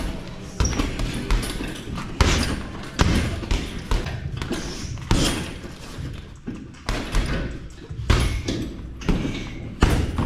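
Strikes thudding into Muay Thai pads during pad work, a string of irregular hits coming about once every half-second to second.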